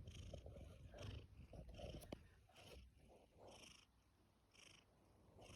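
Domestic cat purring faintly, in a steady low rumble that swells and eases about once a second with its breathing, with one small click partway through.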